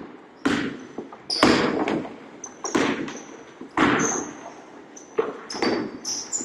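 Basketball being dribbled on a hardwood gym floor: sharp, echoing bounces every half second to a second, with short high squeaks of sneakers on the floor between them.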